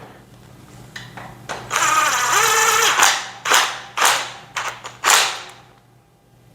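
A screw being driven by hand into the steel frame of a shelving unit with a screwdriver: a drawn-out squeaky grinding for about a second and a half, then five or six short scraping turns. A low electrical hum runs underneath.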